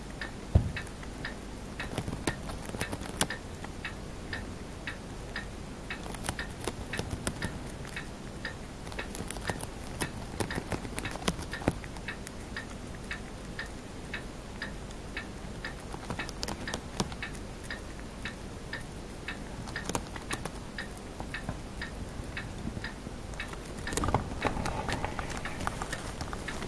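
Chinese dwarf hamster nibbling a green leaf: rapid, irregular tiny crisp clicks of chewing, several a second. A brief louder rustle comes near the end.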